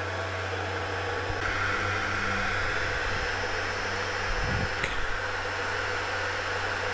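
Electric power centrifuge running steadily: a constant motor hum with a whirring hiss over it as the bowl spins crude sunflower oil and clean oil flows off. A brief low thump and a faint click come about four and a half seconds in.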